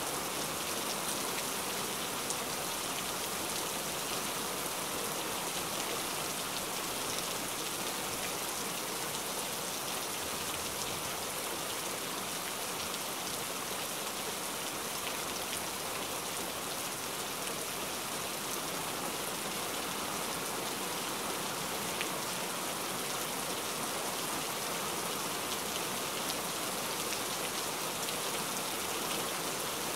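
Heavy rain falling steadily: an even, unbroken hiss with a few faint sharper drop ticks here and there.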